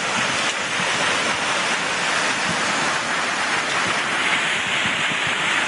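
Flash-flood torrent rushing down a creek channel: a loud, steady rush of water with no let-up.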